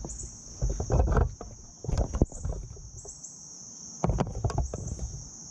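A steady, high-pitched chorus of insects keeps up throughout. Over it come several dull knocks and bumps, about one, two and four seconds in, with a sharp click just after two seconds.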